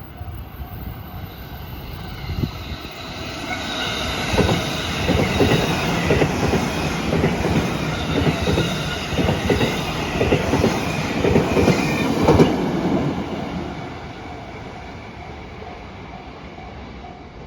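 JR Kyushu 813-series and 811-series electric trains passing. The sound builds up, then the wheels clack over the rail joints in a rapid run of clicks for about eight seconds, and it dies away a few seconds before the end. A level-crossing bell rings faintly as the trains approach and after they pass.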